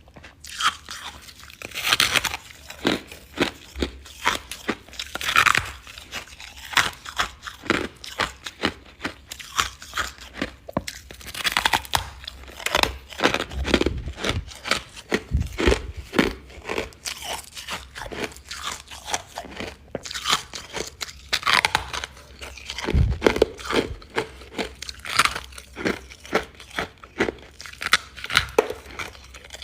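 Close-miked crunching and chewing of refrozen freezer frost: dense crackly crunches throughout, with a louder bite every few seconds.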